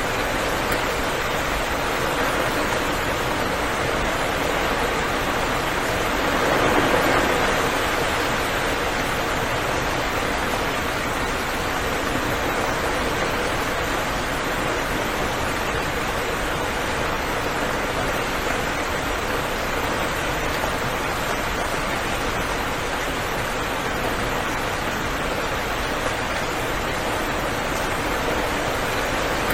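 Steady, dense rainfall hiss, swelling briefly about seven seconds in.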